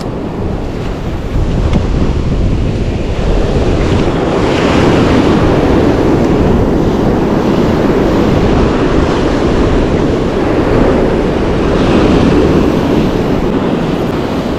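Ocean surf washing onto the beach, with wind buffeting the microphone. The wash swells louder about four seconds in and again about twelve seconds in.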